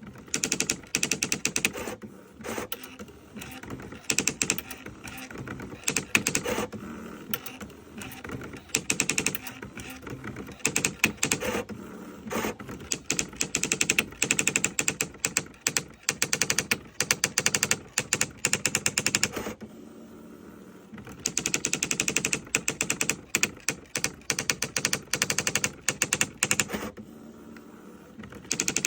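Olivetti ET 55 electronic daisy-wheel typewriter printing, its strikes coming in fast continuous runs of sharp clicks, with two brief pauses, one about two-thirds in and one near the end.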